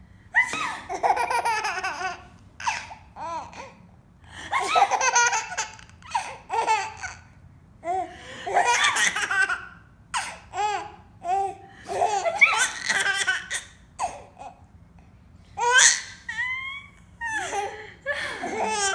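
A baby laughing hard in repeated fits, a new burst of belly laughter every second or two with short gaps between.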